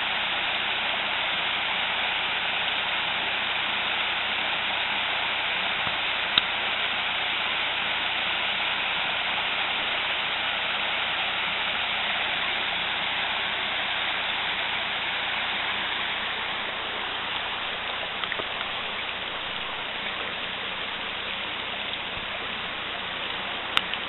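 Steady rush of creek water pouring over small cascades and rock ledges, easing slightly in the last third. A couple of brief clicks sound over it.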